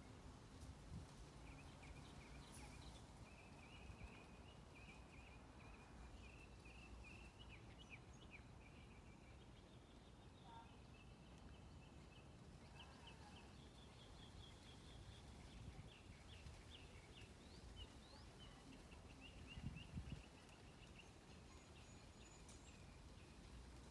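Songbirds chirping faintly in quick runs of short high notes, over a steady low background rumble. A brief low thump sounds about twenty seconds in.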